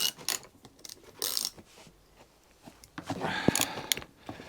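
Scattered clicks and clatter of a socket ratchet being worked on a 13 mm bolt that is seized tight, with a quieter pause in the middle.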